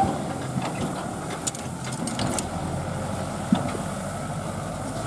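Tractor engine running steadily, with scattered light clicks and knocks from the machinery.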